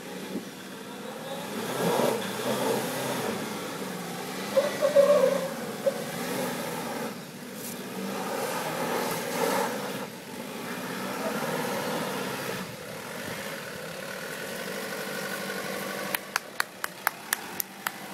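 Nissan Navara D22 engine revving up and down under load as the truck works over rough ground, loudest about five seconds in. Near the end comes a quick run of about eight sharp clicks.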